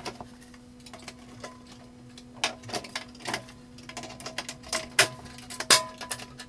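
Irregular clicks and knocks of a painted panel drawer front being handled and fitted onto a kitchen drawer box, with several sharper clacks from about the middle to near the end, over a faint steady hum.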